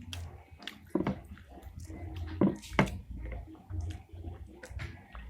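A person chewing pentol mercon, spicy Indonesian meatballs, with irregular sharp clicks and mouth sounds; the loudest clicks come about a second in and twice around two and a half seconds in.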